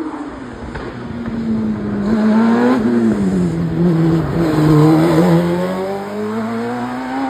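Single-seat hillclimb racing car's engine approaching and passing close by. Its note drops as it slows for the bend, then climbs steadily as it passes, loudest about five seconds in, and accelerates away.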